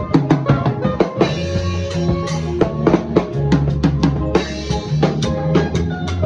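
Full drum kit playing with a band, kick, snare and cymbal hits over sustained bass and keyboard notes.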